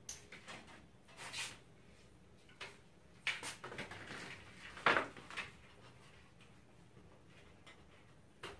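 Scattered rustles and knocks of hands working over an opened LED TV backlight, the white plastic reflector sheet shifting and being lifted off the LED strips. The loudest knock comes about five seconds in.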